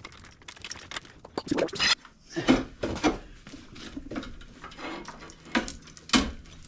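Metal tools and parts clinking and knocking against each other in an irregular run of sharp clanks, some ringing briefly, during work on a car's front suspension and CV axle.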